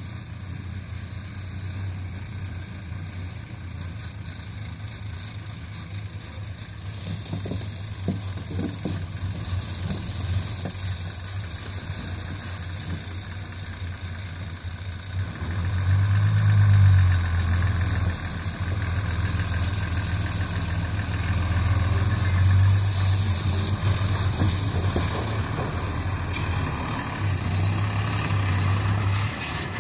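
Diesel engine of a loaded six-wheel dump truck running as it drives along a dirt track, growing clearly louder about halfway through as it comes close and turns past.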